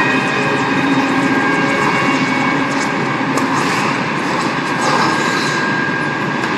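Audience applauding in an ice rink, a steady dense clapping with a faint hum underneath.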